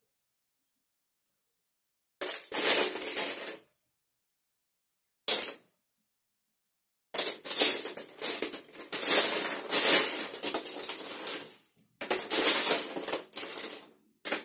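Loose Lego bricks clattering and rattling as a hand rummages through them, searching for particular pieces. The clatter comes in bouts: a short one about two seconds in, a brief rattle near five seconds, then a long spell of rummaging from about seven seconds that runs until near the end.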